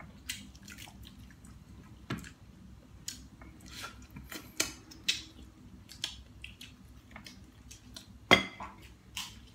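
Roasted duck being pulled apart by hand and eaten: scattered wet clicks and crackles, the sharpest about two seconds in and again about eight seconds in.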